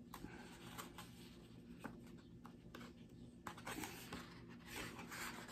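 Quiet room with a few faint clicks, then the paper pages of a hardcover picture book rustling as a hand takes hold of a page to turn it, starting about three and a half seconds in.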